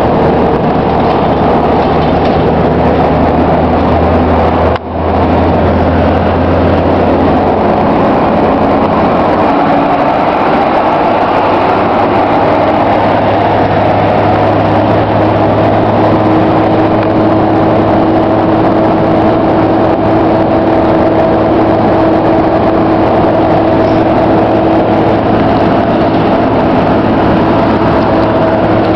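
Iveco 480.10.21 city bus heard from inside the passenger cabin while under way, its engine and drivetrain running loudly and steadily. The sound drops out briefly about five seconds in, and from about halfway a steady whine settles in over the engine note.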